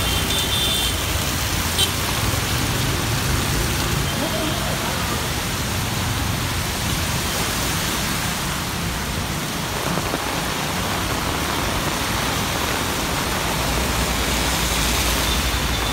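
Heavy rain pouring onto a flooded street: a steady hiss of rain striking standing water and wet pavement.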